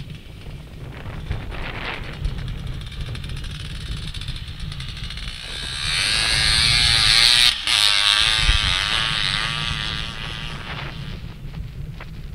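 Dirt bike converted to a snow bike with a 2Moto track kit. Its engine runs at a distance, then passes close about six seconds in, revving up and down, and fades as the bike rides away up the slope. Wind rumbles on the microphone throughout.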